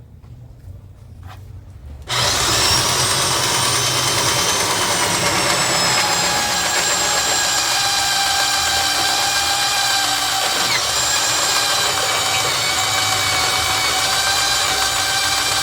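Magnetic base drill's motor switching on abruptly about two seconds in and running steadily with a high whine.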